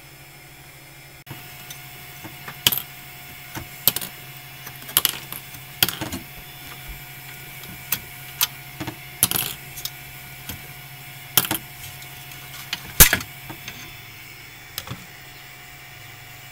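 Irregular sharp clicks and knocks as the 3D printer's perforated build plate and the plastic print on it are handled and lifted out, over a steady low hum. The loudest knock comes about three-quarters of the way through.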